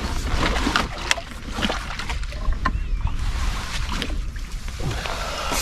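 Wind rumbling on the microphone, with scattered light clicks and knocks throughout and a louder knock near the end.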